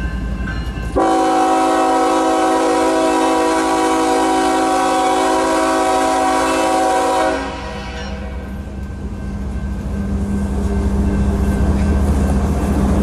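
Diesel locomotive air horn blowing one long chord for about six seconds, starting about a second in and cutting off abruptly. After it, the low rumble of the approaching GE ES44AC locomotive's diesel engine grows louder.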